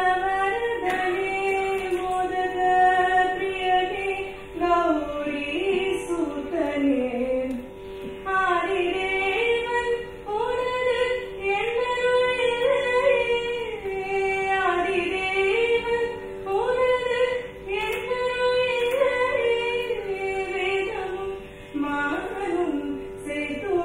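A woman singing an Indian devotional song in long, sliding melody lines over a steady drone.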